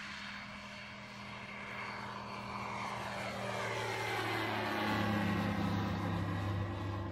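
Single-engine light propeller aircraft flying past low, its engine and propeller drone growing louder to a peak about five seconds in, with the pitch sliding down as it passes.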